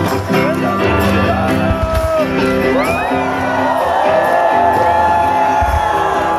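Band music playing at a concert, with the crowd shouting and whooping over it from about halfway in.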